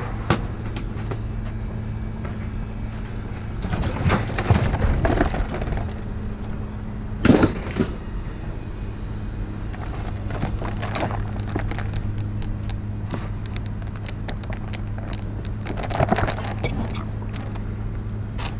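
Scrap metal clanking and crashing in several separate loud knocks, over a steady low engine or machine hum.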